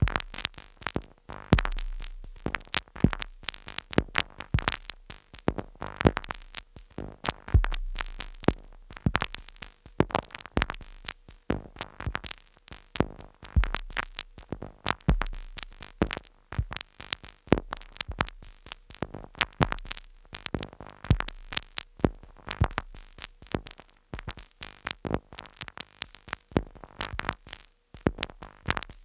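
Two Behringer Neutron analogue synthesizers driven by a step sequencer play a dense, irregular stream of sharp glitchy clicks and noise hits. A low bass tone keeps coming and going underneath.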